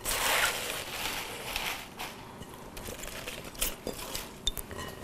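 Dry fresh spinach leaves rustling and crinkling as they are tipped from a glass bowl into a hot skillet and pressed down by hand, loudest in the first two seconds, with a few light clicks after.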